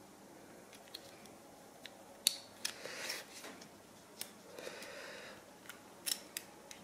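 Faint handling of a plastic spool of copper-coated steel welding wire in the hands: scattered small clicks and ticks, with a soft rustle about three seconds in and again about five seconds in.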